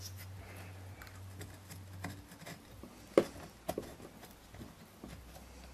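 Small clicks and taps of metal being handled as a Motobecane Mobylette cylinder is worked down over the piston, the rings squeezed by hand into the bore; one sharper click about three seconds in.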